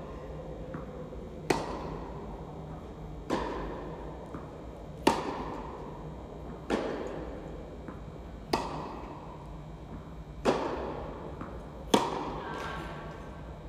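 Tennis rally on an indoor court: rackets strike the ball seven times, about every one and a half to two seconds, each hit sharp and echoing around the hall. A few fainter taps fall between the hits.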